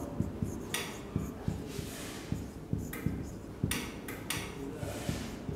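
Marker writing on a whiteboard: a run of irregular light taps and knocks, with a few short, scratchy strokes.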